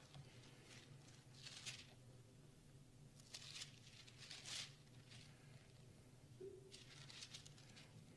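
Faint rustling of paper in a few short bursts, over a low steady room hum: pages being turned.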